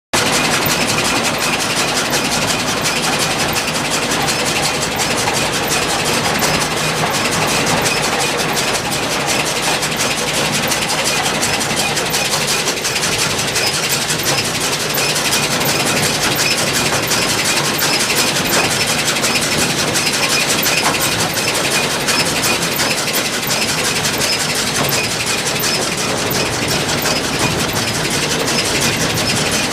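A tractor engine runs steadily with a dense, fast mechanical clatter over it, from a 1996 Case IH 8575 large square baler turning over on the tractor's PTO.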